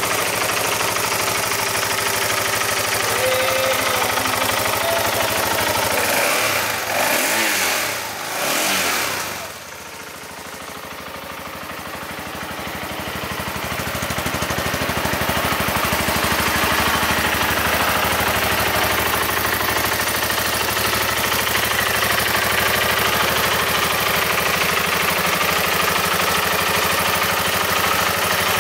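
BMW G650GS single-cylinder engine idling steadily. About seven seconds in its note rises and falls twice, the level dips, then it builds back to a steady idle.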